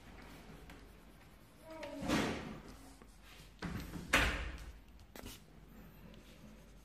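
Sheets of paper being handled and slid about on a cloth-covered table. There are two swishing, rustling sounds about two and four seconds in, then a short knock as a sheet is set down.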